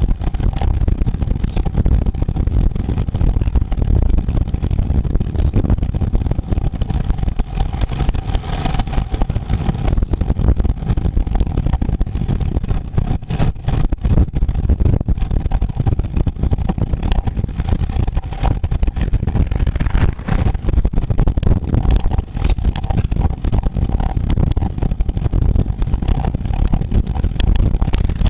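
Wind buffeting the microphone of a camera on a bicycle ridden fast in a road race, a dense, rough rumble with a faint steady hum.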